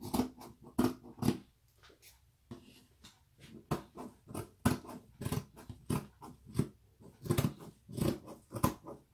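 Dressmaking scissors cutting through lace fabric: a run of crisp snips, about two a second, with a short pause about two seconds in.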